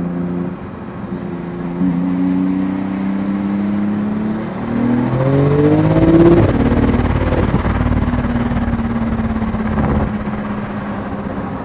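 Porsche 911 GT2 RS's 3.8-litre twin-turbo flat-six heard from inside the cabin, running at low revs as the car moves off. About five seconds in, the revs rise through a climbing pitch, loudest about six seconds in, before settling to a steady cruise.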